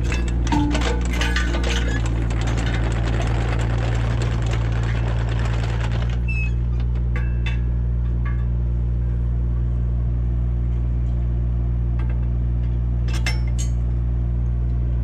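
A JCB 8030 midi excavator's diesel engine runs steadily while the bucket is coupled, with metallic clinks and knocks of the bucket and hitch in the first two seconds. A rushing hiss cuts off suddenly about six seconds in, and a few single metallic clicks follow.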